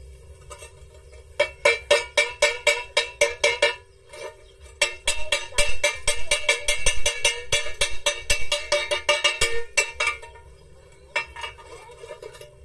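A chipping hammer rapping on a fresh stick weld around a steel pipe joint, knocking off the slag; each strike rings like struck metal, in two quick runs of about five strikes a second, then a few lighter taps near the end.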